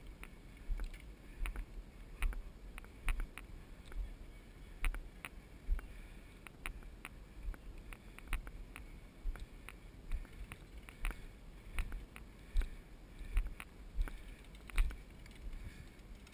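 Walking footsteps with light knocks of gear, a dull thud and a click at each step, about one step every three-quarters of a second.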